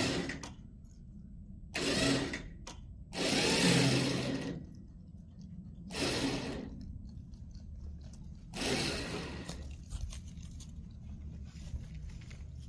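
Winch pulling in four short runs of about a second each, with pauses between them, while it drags a loader off a trailer through a snatch block.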